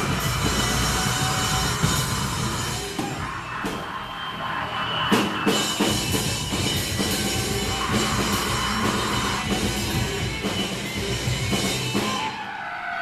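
A live rock band playing loud, dense distorted electric guitars over a pounding drum kit. The playing breaks off about a second before the end.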